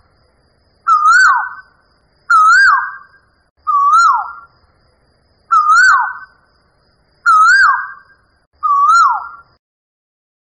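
A bird calling six times, about every one and a half seconds. Each call is a short whistled note that wavers up and then drops away.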